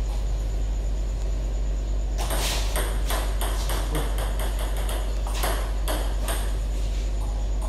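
Table tennis rally: a celluloid-type ball clicking off two DHS Hurricane King III blades and the table, a quick run of sharp ticks about three or four a second starting about two seconds in, with a brief gap near the middle, stopping a little after six seconds. A steady low hum lies underneath.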